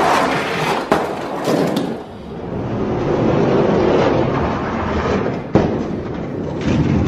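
Hot Wheels die-cast monster trucks rolling down a plastic track, a rolling noise that rises and falls, with two sharp clacks, one about a second in and one near six seconds.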